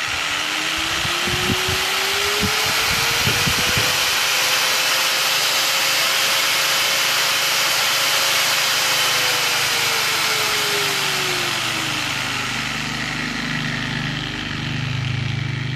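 Angle grinder's electric motor running unloaded with no disc fitted, fed through a dimmer-type speed controller: its whine rises in pitch over the first few seconds as the speed is turned up, holds, then falls again from about eight seconds in as the speed is turned back down.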